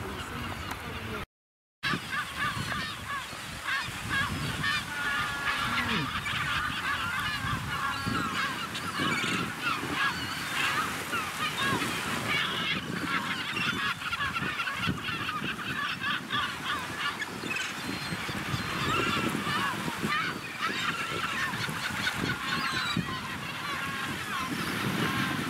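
A flock of gulls calling over one another, many short, overlapping cries. The sound drops out briefly about a second in, at a cut.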